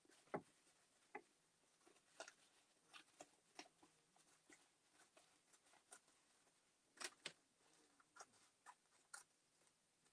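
Near silence broken by about a dozen faint, scattered snips and paper rustles: scissors trimming paper.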